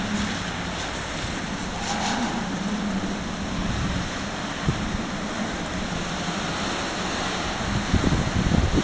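Tropical-storm wind blowing hard and steadily, with gusts buffeting the microphone in low thumps near the end.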